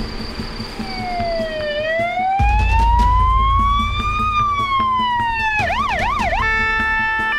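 Emergency vehicle siren: a slow wail that dips, climbs and falls again, switching about six seconds in to a brief fast yelp and then steady alternating tones. A deep low rumble runs underneath from about two and a half seconds in.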